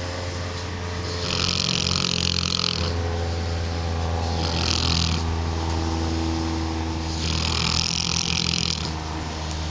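Neapolitan Mastiff snoring while awake: three long snoring breaths about three seconds apart, over a steady low rumble.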